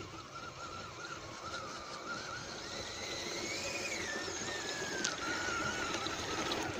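Electric motors and gear drivetrains of two scale RC rock crawlers whining under throttle as they climb loose rock. The whine wavers, rises to its highest a little past three seconds in, slides back down and cuts off suddenly near the end.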